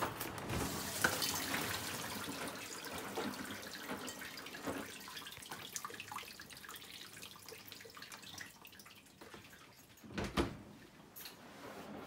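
Miele G 4203 SC dishwasher opened mid-cycle: water drips and trickles inside the wet tub, fading over several seconds. About ten seconds in, the door shuts with a sharp thud.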